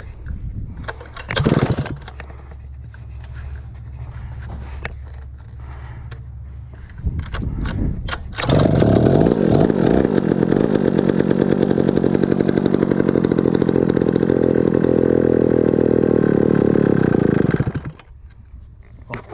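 Stihl 051 two-stroke chainsaw being pull-started on full choke, primed with petrol trickled into the cylinder. There are starter pulls about a second and a half in and again around seven seconds. It then fires about eight and a half seconds in, runs steadily for about nine seconds, and cuts out suddenly.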